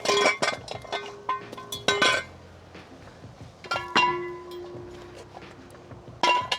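Metal tools and steel jack stands clanking as they are picked up and set down: several sharp metallic clanks, some leaving a ringing tone that hangs on for a second or more.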